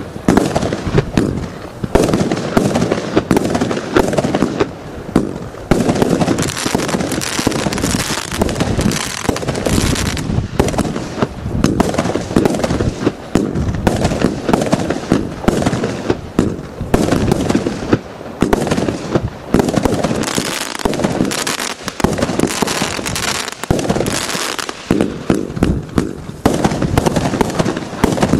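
Absolute Fireworks 'Twister' firework cake firing shot after shot: a rapid, near-continuous string of launches and bursts with no real pause.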